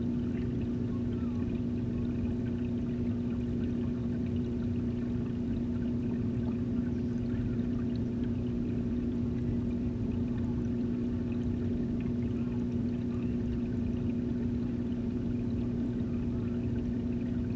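Aquarium filter pump and water flow heard underwater: a steady low hum over a constant rushing wash of moving water.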